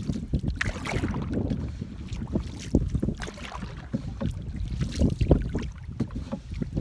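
Wooden canoe paddle strokes splashing and swishing in choppy lake water, with water slapping the hull, under a steady rumble of wind on the microphone.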